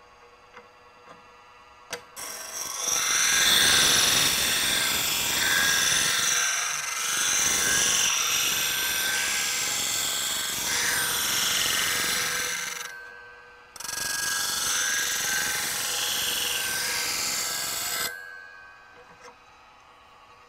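A steel skew plane iron being hollow ground against the wheel of a Tradesman DC bench grinder turning at about 1500 RPM: a loud, steady grinding hiss that starts about two seconds in, breaks off briefly near thirteen seconds, then resumes until about eighteen seconds in. The grinder's faint steady hum runs underneath.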